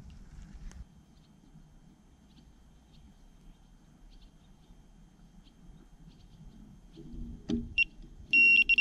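Quiet bankside with faint bird chirps, then about 7.5 s in an electronic carp bite alarm gives a few single high beeps before switching to a loud continuous tone near the end: a run, a carp taking line.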